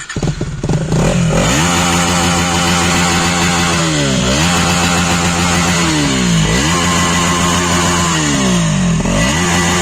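KTM Duke 250 single-cylinder engine with its exhaust dB killer removed, coming up loud in the first second and then running, its pitch swinging down and back up three times, about two and a half seconds apart.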